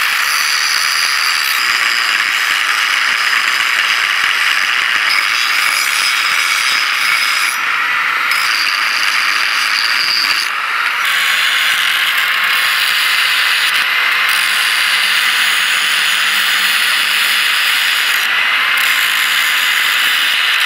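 Electric angle grinder running under load, its disc grinding down weld beads on steel nuts and bolts: a steady high whine over a harsh grinding hiss, easing off for a moment a few times as the disc's contact changes.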